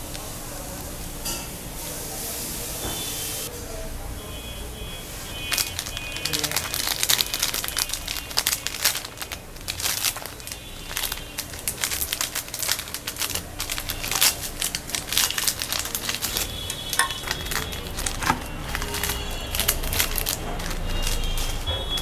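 Meat grinder motor humming steadily while it grinds chocolate-filled snacks. From about five seconds in there is dense, irregular crunching and crackling as the pieces are crushed.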